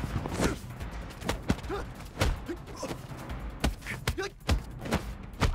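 Movie fight-scene sound effects: a quick series of punch and strike impacts, about eight sharp hits, with short grunts and shouts from the fighters over background music.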